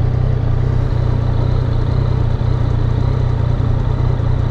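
2015 Yamaha FZ-09's 847 cc inline-three engine idling steadily.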